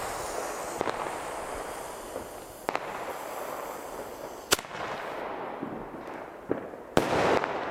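A single-shot bombette tube (Albert Glamour Shots, a category F2 consumer firework) firing. A hiss runs for several seconds, sharp firework cracks go off now and then, and a louder bang with a brief crackle comes about seven seconds in.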